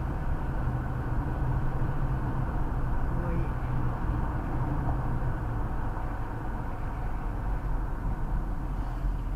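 Car engine and tyre noise heard from inside the cabin, a steady low rumble while driving up a winding mountain road.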